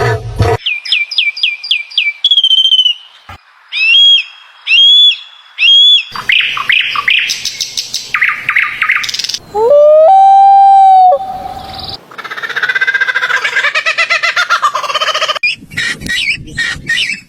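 A run of different bird calls strung one after another: quick repeated chirps, then short calls in groups of three, a long loud call about halfway through, and a busy chattering passage toward the end.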